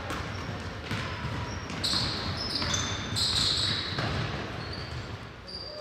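Basketball play on a hardwood gym floor: the ball bouncing, players' feet running, and sneakers giving short high squeaks as they cut and stop.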